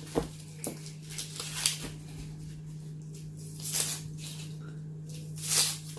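Dry, papery onion skin crackling and rustling as an onion is peeled by hand: a few small clicks in the first two seconds, then two longer rustles about four and five and a half seconds in.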